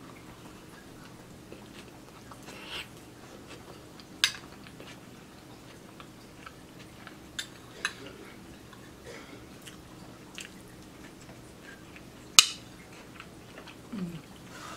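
Chewing of soft enchiladas made with egg-thin wraps, chicken and salsa verde, with scattered clicks and scrapes of a fork on the plate; the sharpest click comes about twelve seconds in.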